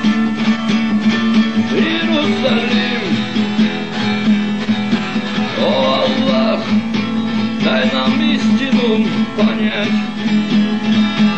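Acoustic guitar music, an instrumental passage of a guitar-accompanied song, with a steady low tone sustained underneath.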